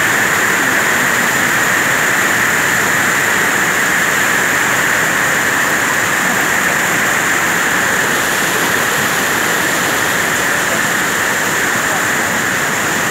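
Fast, swollen river water rushing and churning over rocks in a steady, unbroken rush.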